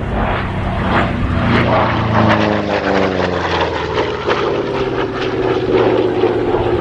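Republic P-47 Thunderbolt's Pratt & Whitney R-2800 Double Wasp radial engine running at display power as the fighter flies past. Its pitch drops about two to four seconds in as it passes, then holds steady.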